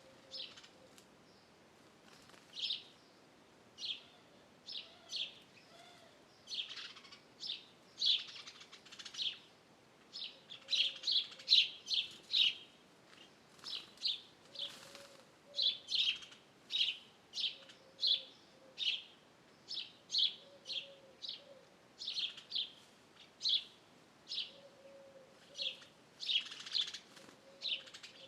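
Wild birds chirping: a steady run of short, high chirps, about one to two a second, with a few faint low calls now and then.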